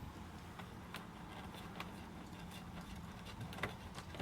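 Faint scattered clicks and light taps of small parts and tools being handled, over a steady low hum.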